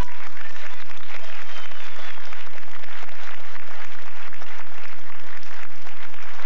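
Audience applauding: many hands clapping steadily as a children's song ends.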